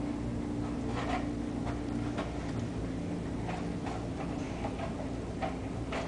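Steady low hum with a few faint, irregular clicks.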